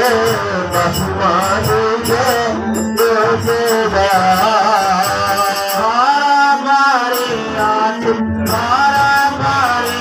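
A man singing a devotional chant into a microphone, with a wavering, gliding melody over steady musical accompaniment.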